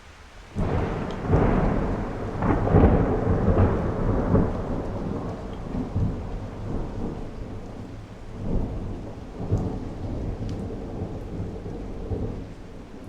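A thunderclap cracks about half a second in and rolls on in uneven rumbles that slowly fade, over steady rain.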